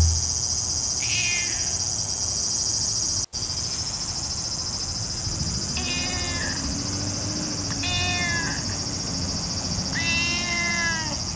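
Tabby cat meowing: a faint meow about a second in, then three clearer meows in the second half, the last one the longest. A steady high insect drone runs underneath.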